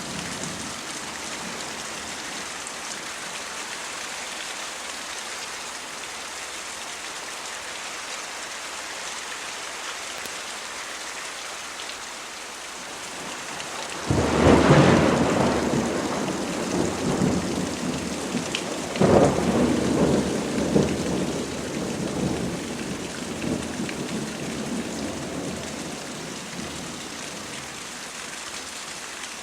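Steady rain falling, with a sudden thunderclap about halfway through and a second clap some five seconds later, each rumbling away over several seconds.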